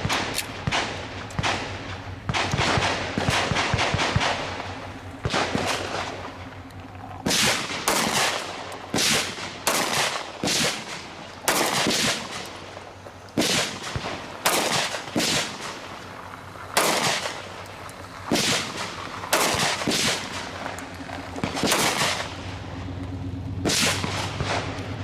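A long series of gunshots: a quick run of closely spaced shots at first, then about two dozen single shots fired every half second to a second, each with a short echo.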